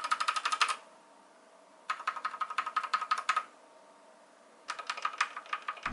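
Typing on an Akko 3087 mechanical keyboard in three quick bursts of keystrokes, with short pauses between them. Its soldered switches have been lubed by scraping lube onto them without desoldering.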